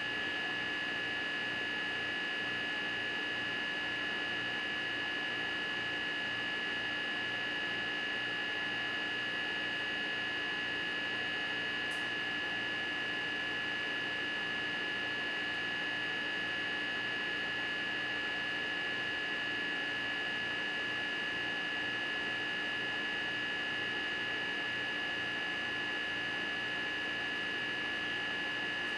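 A steady, unchanging hum with a thin high whine over a bed of hiss.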